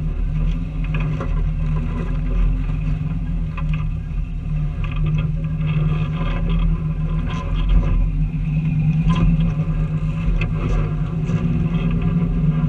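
Off-road vehicle's engine running steadily at crawling speed, with tyres crunching over gravel and rock and scattered small knocks and clicks.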